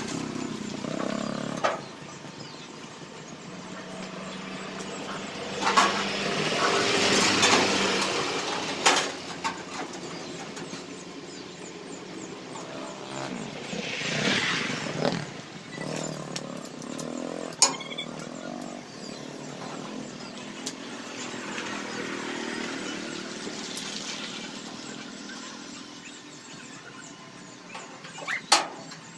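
Motorcycles passing by, three in turn, each rising and fading over a few seconds, with a few sharp metallic knocks in between.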